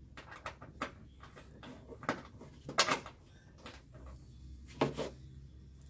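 Scattered clicks and knocks of bolts and the snorkel being handled while it is bolted to the pickup's body. There are two sharper knocks, one about three seconds in and one near five seconds. The bolts are too short for the snorkel's mounts.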